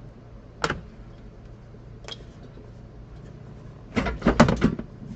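A sharp click, then a quick run of knocks and clatters near the end, from car interior parts being handled and pulled during a teardown.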